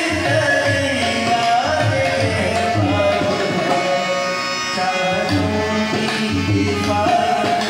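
A man sings into a microphone over a steady tabla rhythm, with a harmonium holding sustained notes underneath.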